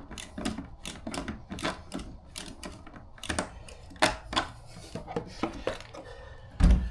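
Plastic gas can cap being handled and screwed on, a run of irregular clicks and taps, with one heavy thump near the end.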